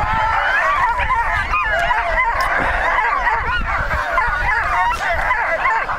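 A sled dog team yelping and yipping in a constant excited chorus, many dogs' voices overlapping, the usual clamour of dogs held in the start chute and eager to run.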